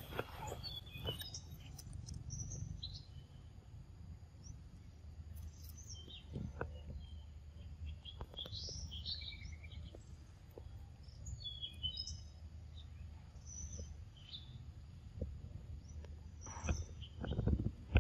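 Birds chirping in scattered short calls over a steady low rumble, with occasional close clicks. Near the end comes a louder cluster of knocks and rustling, the loudest sound here.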